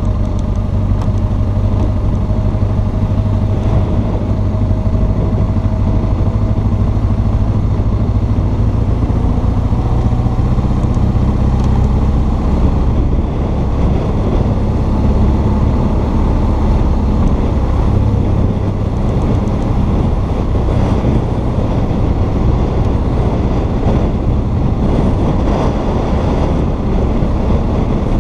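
Motorcycle engine running at road speed with wind rushing past; the engine note shifts about twelve seconds in and again a little later as the speed changes.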